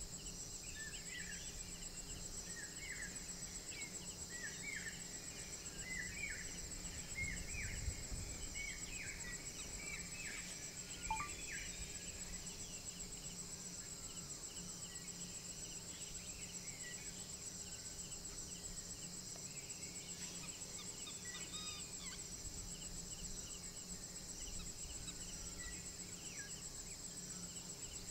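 A night-time insect chorus of crickets: a steady high-pitched trill. Over it, for roughly the first ten seconds, an unseen animal gives a run of short repeated chirping calls, with a few fainter ones later.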